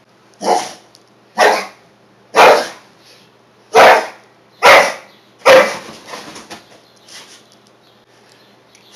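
American Staffordshire terrier barking in play, six loud barks spaced about a second apart over the first six seconds.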